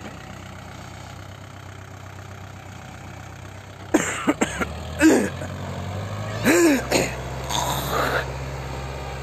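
Kubota L5018 tractor's diesel engine running steadily under load as it pulls a five-disc plough through the soil, growing louder about two thirds of the way through. From about four seconds in, several short human vocal sounds break over the engine.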